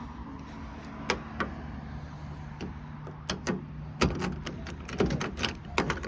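Car door being handled: a run of clicks and knocks, with a heavier thump about four seconds in, over a steady low hum.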